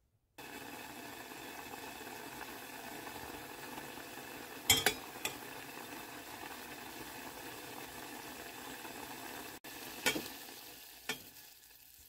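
Wine and sugar simmering in an enamel pot with a steady sizzling hiss that fades near the end. A metal spoon clinks against the pot a few times, around the middle and again near the end.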